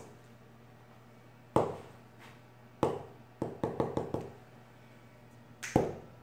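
Felt-tip marker tapped down onto paper on a desk to make dots: sharp, separate taps, with a quick run of about five near the middle.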